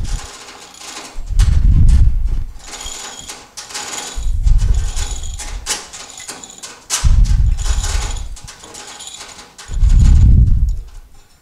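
Manual chain hoist lowering a load: the hand chain rattles through the block and the hoist clicks steadily, while a low rumble swells and fades four times, about every three seconds.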